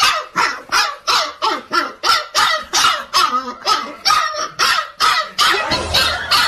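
A dog barking over and over, about three barks a second without pause, with one longer, rougher bark near the end.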